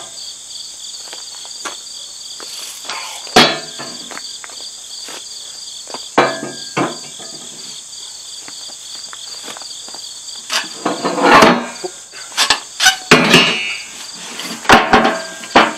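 Wooden bucket fork board being knocked and worked loose out of a steel tractor loader bucket: one sharp knock about three seconds in, another near six seconds, then a run of knocks and clatter from about ten seconds in until near the end. A steady insect chorus runs underneath.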